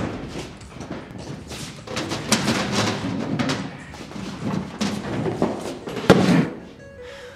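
Scuffle between two men: shuffling, bumps and thuds, with one sharp, louder knock about six seconds in.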